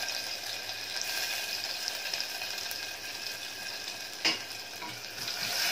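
Hot oil sizzling steadily in a pressure cooker pot as mustard seeds, curry leaves, chopped garlic and grated ginger fry for a tempering (phodni), with a single sharp click about four seconds in.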